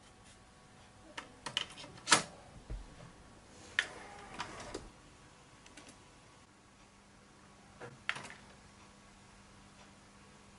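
Mechanical clicks and clunks from a Sony TC-K333ESA cassette deck being handled: a cassette going into the cassette well and the door shutting, then front-panel buttons being pressed. A cluster of clicks with the loudest clack about two seconds in, another group around four to five seconds, and a couple more clicks near eight seconds.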